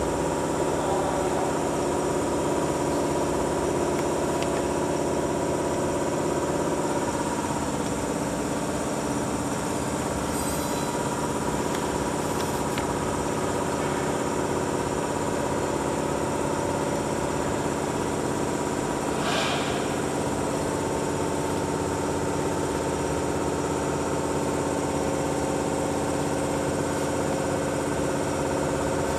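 Steady hum of running packaging machinery, with several steady tones and no change in level. A brief rustle comes about nineteen seconds in.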